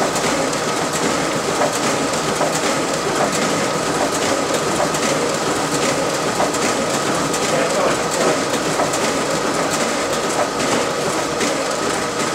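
RISO 9050 production printer with high capacity feeder and finisher running a long duplex print job: a steady mechanical running noise with a constant high whine and repeated light clicks of sheets feeding through.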